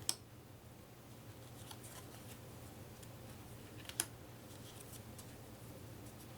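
Cardboard playing cards being handled: faint rustling and light ticks, with two sharp clicks, one just after the start and one about four seconds in.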